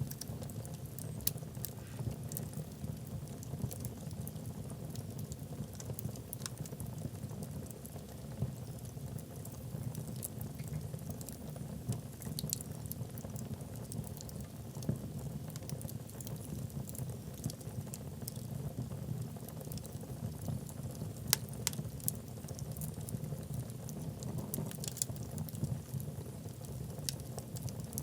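Wood logs burning in a fireplace: a steady low rush of flame with scattered sharp crackles and pops, one louder pop about three-quarters of the way through.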